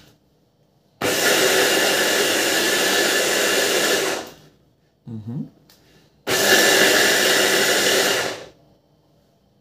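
Electric hand blender with a chopper-bowl attachment running in two bursts, about three seconds and then two, blending a wet spice paste of lemongrass, ginger, shallot, garlic and coconut milk. A short, quieter low sound comes between the bursts.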